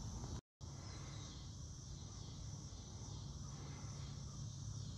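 Quiet outdoor ambience: steady high insect chirring over a low rumble of wind on the microphone. The sound drops out completely for an instant about half a second in.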